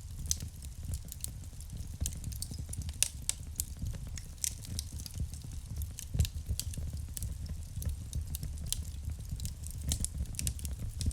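Wood fire burning in a fireplace: a steady low rumble of flames with irregular sharp crackles and pops, one louder pop about six seconds in.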